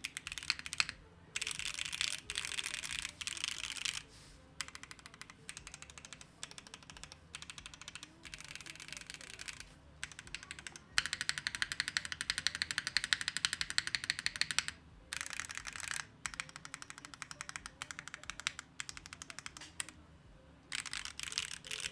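Void65 mechanical keyboard with Gateron Khonsu switches being typed on fast, a dense clatter of keystrokes in runs broken by short pauses, with the longest and fastest run about halfway through.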